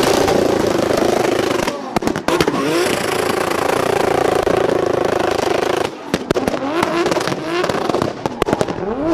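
Turbocharged drift car engine running at high revs under tyre screech. Around two seconds in and again around six seconds in it comes off the throttle with rapid crackling pops and bangs from the exhaust, the anti-lag system firing, then revs back up.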